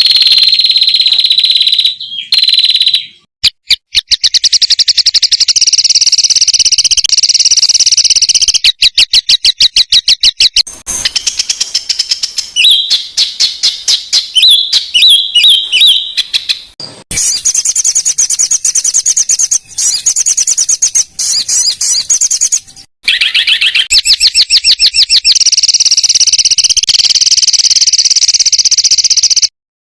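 Songbird song compiled as a masteran tutor track: loud, fast trills and shrill repeated notes in tight rapid-fire phrases. It is spliced from several recordings, with abrupt cuts and brief silences between them.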